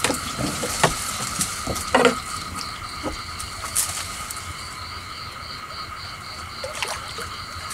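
Night chorus of insects and frogs, a steady trilling with one thin pulsing trill about five beats a second. Over it come a few short knocks and splashes as a catfish is pulled from the water on a set line.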